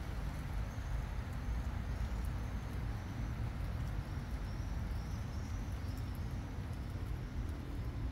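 Outdoor ambience under trees: a steady low rumble with scattered faint ticks, and a few faint high bird chirps through the middle.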